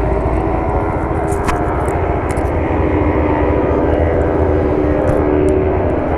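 Motorcycle engine idling close to the microphone: a steady rumble with a fast, even low pulse, and a few light clicks in the first couple of seconds.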